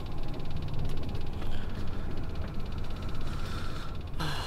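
Truck engine running, a steady low rumble with a faint hiss above it; the sound changes abruptly near the end.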